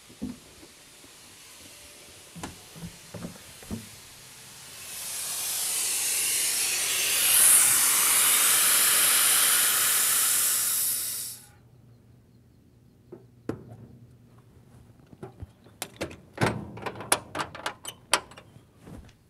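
Compressed air hissing out of a school bus's rear air brake tank through its drain valve, swelling for a few seconds and then cutting off suddenly as the valve is closed. A run of sharp clicks and knocks follows as the front access panel is shut and latched.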